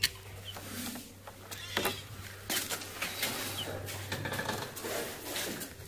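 Scattered knocks and rustles from a phone being handled and moved about, over a steady low hum, with a few short, faint bird chirps.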